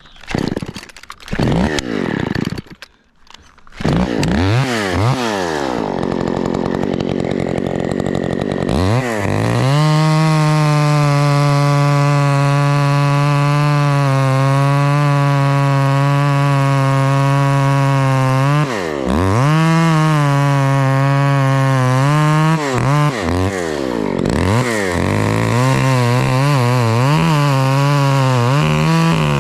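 Two-stroke chainsaw at the top of a Douglas fir, revving up and then held at full throttle for about ten seconds as it works through a cut. It drops off briefly, revs up again, and near the end the throttle goes up and down.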